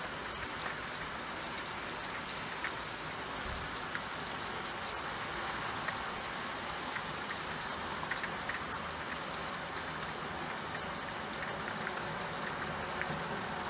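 Steady rain falling, with individual drops ticking here and there through the steady patter.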